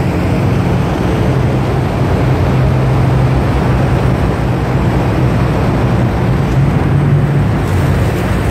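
Demolition derby truck engines running loud and steady at low speed, an even low drone that holds the same pitch throughout.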